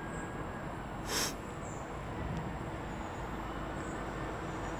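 Faint, steady running of a distant GBRF Class 66 diesel freight locomotive as it approaches, under outdoor background noise, with a brief sharp hiss about a second in.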